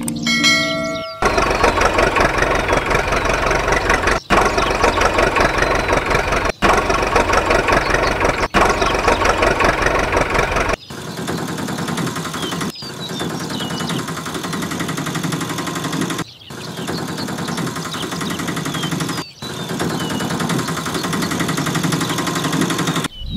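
An engine running with a rough, dense clatter, cut off and resumed several times; after about 11 s it goes on thinner, with less bass.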